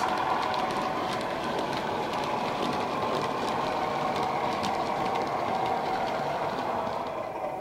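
Sound-equipped Bachmann Class 37 model locomotive playing its diesel engine sound through a Megabass speaker as the train runs away, with many small clicks of the model wagons' wheels on the track. The sound fades near the end.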